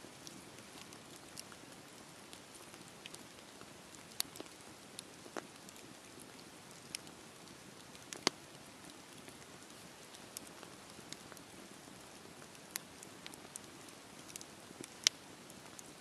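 Wood fire crackling: a soft steady hiss of burning logs with scattered sharp pops and snaps, two of them louder, about eight seconds in and near the end.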